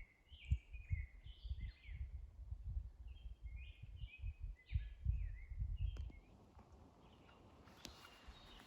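A songbird singing repeated phrases of short notes that step and slide down in pitch, over irregular low thumps. The song stops about six seconds in, leaving a quiet steady hiss.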